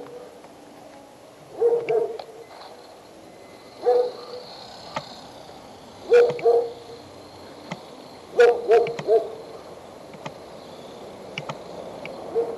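An animal calling: short, low, hoot-like calls repeated every couple of seconds, some single and some in quick pairs or threes.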